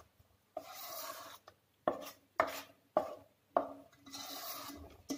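A spoon stirring thick rice-and-coconut appam batter in a stainless steel bowl, knocking and scraping against the bowl's sides with each stroke, a sharp knock roughly every half second to second with softer scraping in between.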